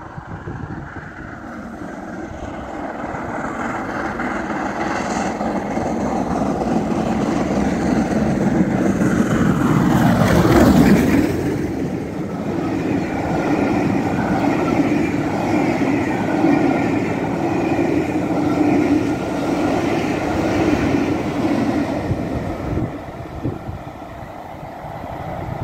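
Steam locomotive Sierra Leone and its train of coaches passing at speed. The rumble builds as it approaches and peaks about ten seconds in with a steeply falling sweep in pitch as the engine goes by. The coaches then run past with a steady rhythmic rumble before it fades away.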